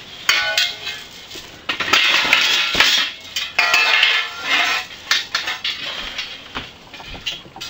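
Welded metal-tube frame parts clanking and clinking against each other as they are pulled from a pile and handled, several knocks leaving a brief metallic ring.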